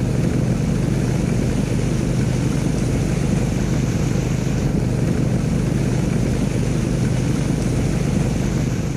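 Small motorbike engine running steadily under load, driving a motorbike mounted on plastic floats through the water, with water rushing around the floats.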